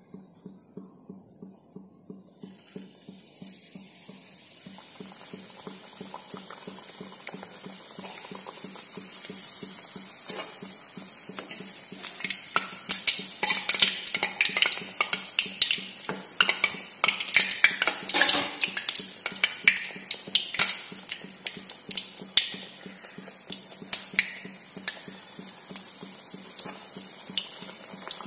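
Madakku dough deep-frying in hot oil in a metal kadai: a faint sizzle that turns into loud, dense crackling and spitting from about twelve seconds in, then eases off. A skimmer and spatula scrape and clink against the pan as the piece is turned.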